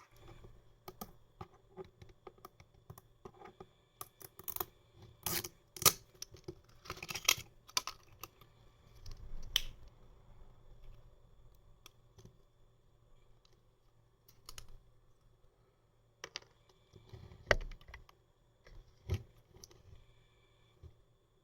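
Close-up clicks, crinkles and knocks of a glass ramune bottle and its plastic cap and opener being handled and unwrapped. The sharpest snaps come in a cluster a few seconds in, with two more hard knocks near the end.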